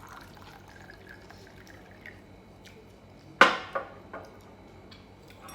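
Tableware at a meal: quiet small clicks, then one sharp clink with a short ring about three and a half seconds in, and a lighter one just after.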